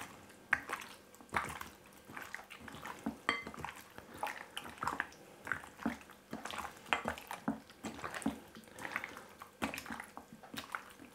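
Hands massaging raw pork spare rib chunks in beaten egg in a glass bowl: irregular wet squelching and sloshing, several squishes a second.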